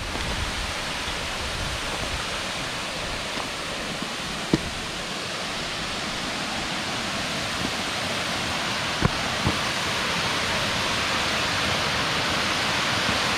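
Waterfall at the Lake Hamilton dam rushing steadily, growing slightly louder toward the end. A few brief clicks about four and a half and nine seconds in.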